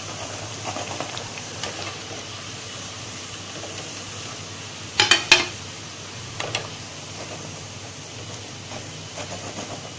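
Hot frying oil in a wok sizzling with a low steady hiss as fried chana dal vadas drain in a wire-mesh skimmer. A quick cluster of three sharp clicks comes about halfway through, with a couple of fainter ones later.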